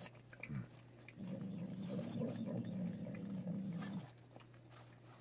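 Cat growling low and rough for about three seconds, starting about a second in, while it licks a Churu paste treat from a tube, with small licking clicks. It is the defensive growl of a fierce cat being hand-fed during taming.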